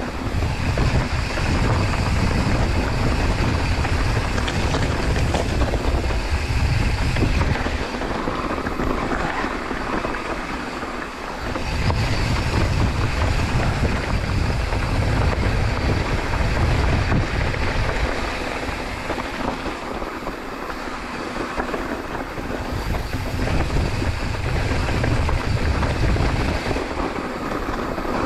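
Mountain bike riding down a dirt trail at speed: wind rushing over the bike-mounted camera's microphone, with steady trail noise beneath. The low wind rumble drops away for a few seconds about a third of the way in and again past the middle.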